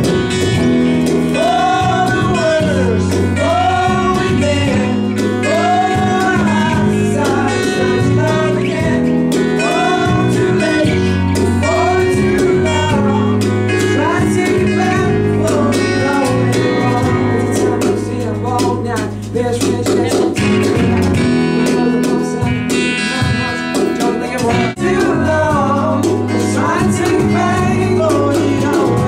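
Live pop-rock band playing a song: guitar and bass under a recurring melodic vocal or lead line, with short breaks in the level about two-thirds of the way through.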